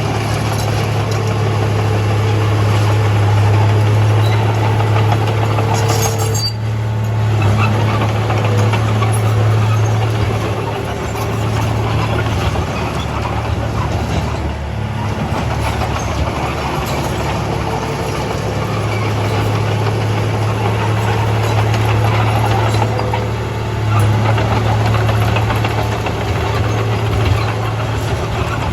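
Diesel engine of a Komatsu D31A bulldozer running steadily with a strong low hum, dipping briefly about six and a half seconds in and again about fifteen seconds in.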